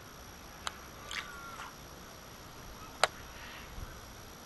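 A few sharp clicks over a quiet steady background, the loudest about three seconds in, with a short faint chirping call about a second in.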